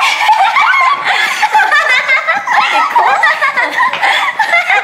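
Several young women laughing together, loud and unbroken, their laughs overlapping.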